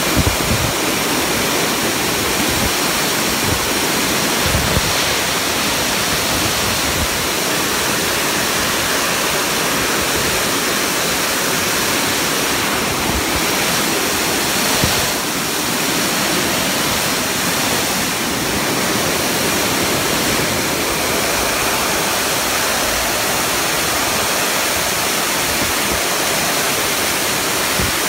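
High-velocity pet grooming dryer blowing a steady, loud rush of air through thick white fur, with a few brief low bumps in the first few seconds.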